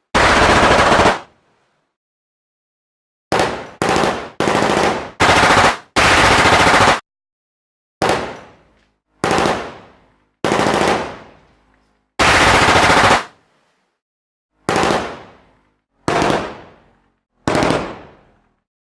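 Machine-gun fire sound effects: about a dozen short bursts of automatic fire, each lasting a fraction of a second to about a second, separated by silent gaps. Several of the bursts trail off in an echo.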